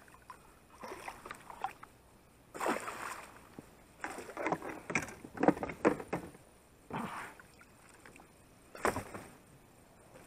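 Water splashing and sloshing at the side of an inflatable boat as a hooked pike is brought in and lifted in a landing net. It comes in separate bursts with quiet gaps, busiest about four to six seconds in.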